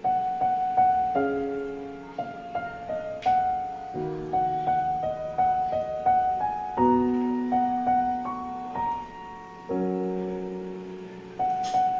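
Background piano music: a gentle melody over chords that change about once a second.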